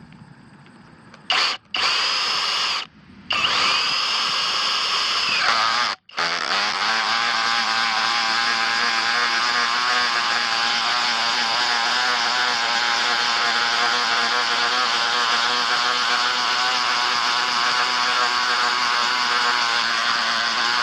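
Kobalt 24V SDS Plus rotary hammer in hammer-drill mode, boring with a 2-1/8 inch Forstner bit in an SDS chuck adapter. It starts in short runs about a second in, sagging in pitch as the bit bites, then runs steadily with a ratcheting hammer action from about six seconds on until the bit goes through.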